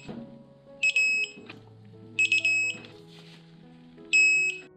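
Digital torque wrench beeping three times, about a second and a half apart, each beep a short stutter and then a held high tone of about half a second: its alert that the set torque has been reached on the bolt.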